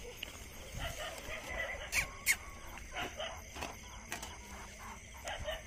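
Wire-mesh rat cage trap clinking and rattling as gloved hands handle it, with two sharp metallic clacks about two seconds in and lighter clicks after, and a few faint short squeaks.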